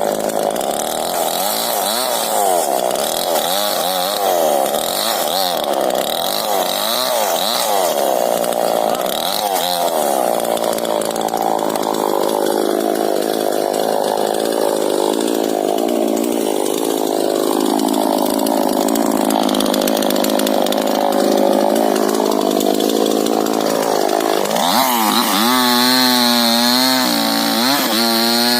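Falcon two-stroke chainsaw cutting through a rubber tree trunk. The engine pitch dips and recovers over and over under load at first, then runs steadily in the cut; near the end it revs up to a high, clear pitch as the chain runs free.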